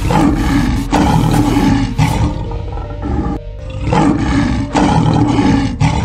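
Lion roaring, several loud roars in a row, over background music.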